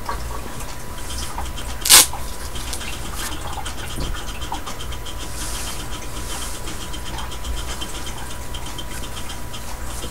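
Soft rustling of baby clothes being pulled off a reborn doll, with scattered faint ticks over a steady low hum, and one short, loud sharp click about two seconds in.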